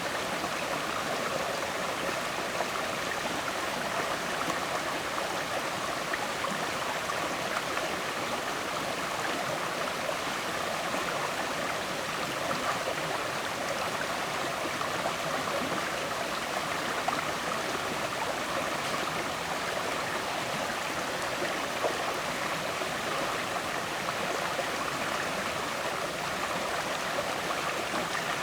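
River water flowing and gurgling in a steady rush that holds even throughout.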